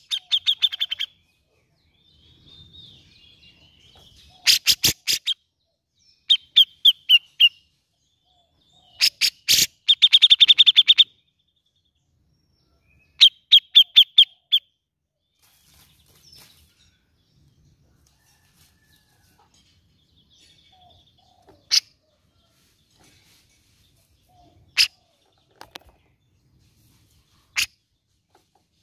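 Grey-cheeked bulbul (cucak jenggot) calling in quick bursts of rapidly repeated sharp notes, five bursts in the first fifteen seconds with the longest and loudest about ten seconds in. After that it gives only single sharp notes a few seconds apart.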